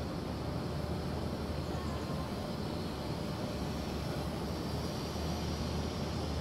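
Steady low rumble and hiss of outdoor background noise, even throughout with no distinct event.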